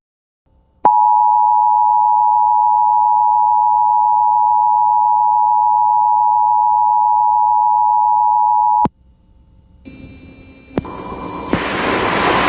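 Emergency Alert System attention signal: a steady two-tone beep near 1 kHz, held for about eight seconds and cutting off sharply. After it, a hiss of noise rises near the end.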